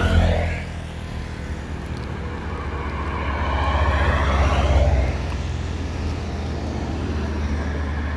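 A motor vehicle's engine running with a steady low hum, starting suddenly, and a swell of noise that builds to its loudest about four to five seconds in, then drops off, as of a vehicle passing close by.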